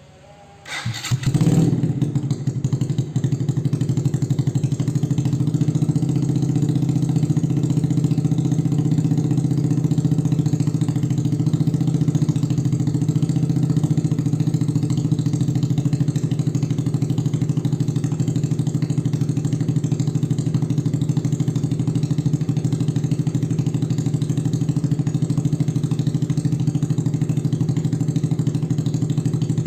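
Suzuki Shogun Axelo motorcycle engine starting about a second in, then settling into a steady idle through an aftermarket X1 Speed Racing exhaust silencer.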